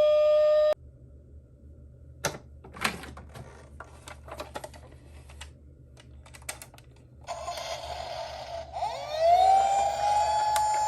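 A steady siren tone cuts off abruptly just under a second in. Small clicks and taps of die-cast toy cars being handled follow. About seven seconds in a siren starts again, gliding up to a held high wail.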